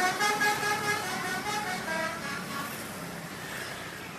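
Bus telolet horn playing a multi-note tune, its chord of tones stepping from pitch to pitch and fading steadily as the bus moves away.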